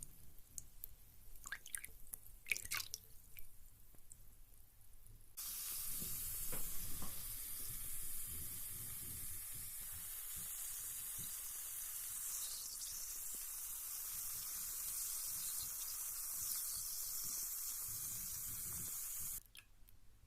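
A few small water drips and clicks, then a carbonated bath bomb fizzing steadily in water: a high hiss that starts abruptly about five seconds in and cuts off near the end.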